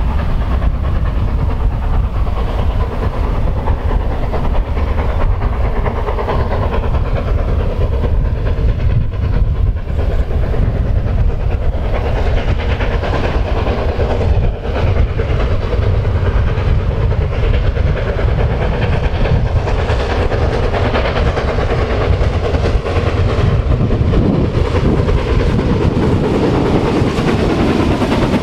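BR Standard Class 9F 2-10-0 steam locomotive working a passenger train as it approaches, the sound of the engine and train growing fuller from about twenty seconds in as it nears and passes close by.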